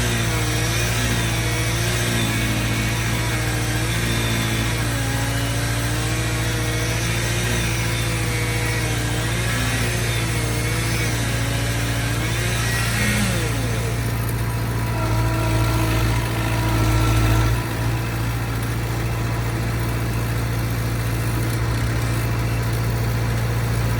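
Skid steer engine running steadily with a low hum. A higher engine note wavers up and down through the first half, and the engine works harder and grows louder about fifteen seconds in before easing back.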